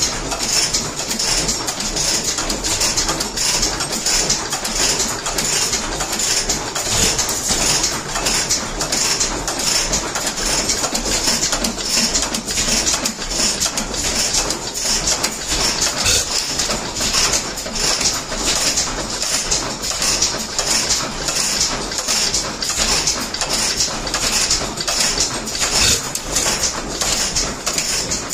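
Antique stationary flywheel gas engines running, firing in a fast, even beat.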